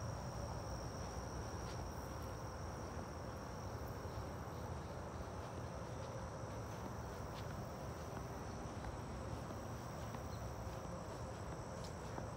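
Insects singing in a steady, high-pitched chorus over a low, even rumble.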